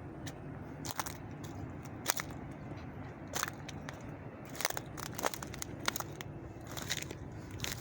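Footsteps crunching on gravel and debris, an irregular crunch roughly every second, over a steady low rumble.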